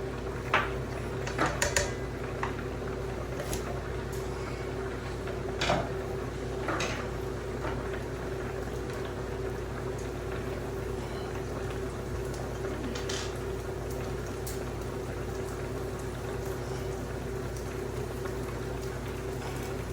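A few short clicks and knocks of parts being handled while a wire feeder cage is put together, most of them in the first seven seconds and one more around the middle. A steady low hum runs underneath.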